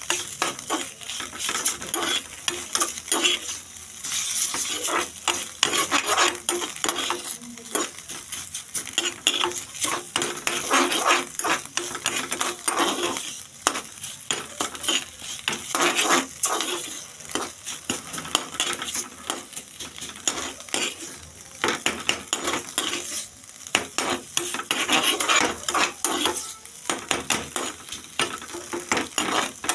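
A metal spatula stirring chopped onions frying in oil in a pan: rapid, irregular scraping and clinking of metal on the pan over a steady sizzle.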